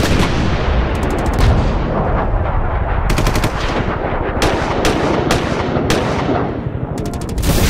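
Machine-gun fire sound effect: several rapid bursts of shots over a dense, loud rumble, with the longest bursts about a second in, about three seconds in and near the end.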